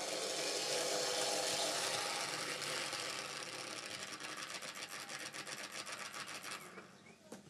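Small electric motor and gear drive of an 00-scale model tram, an old Bachmann PCC mechanism, whirring as the tram runs along the track, with a rapid ticking in the second half; it stops suddenly near the end.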